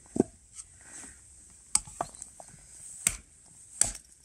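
A large knife chopping into frozen hazel sticks resting on a log: five sharp woody knocks at uneven gaps of about a second.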